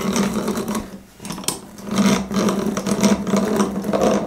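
Hand-cranked breast drill boring into a softwood 4x4: a steady whirring of its crank gears with rapid fine clicking as the bit cuts. The whirring eases briefly about a second in, then picks up again.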